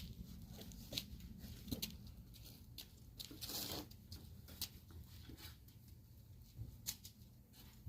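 Scattered light clicks and taps of hand work on a motorcycle wheel being reassembled, with one brief scrape about three and a half seconds in.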